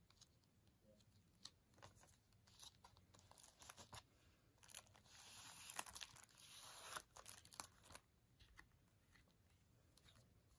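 Cardboard slipcover being handled and slid off a plastic Blu-ray case: faint clicks and rustles, with a scraping rustle of about two seconds in the middle as the sleeve slides off.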